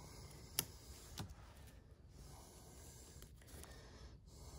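Two light clicks about half a second apart, a little after the start, over faint room noise: the handling of a cast net and its line while a knot is tied.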